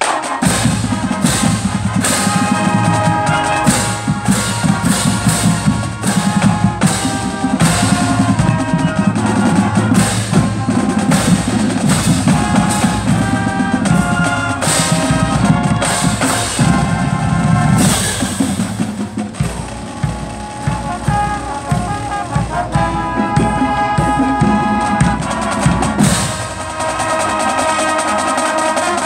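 Marching band playing: brass chords with sousaphones over bass drums, snare and timpani, the full band coming in loud right at the start.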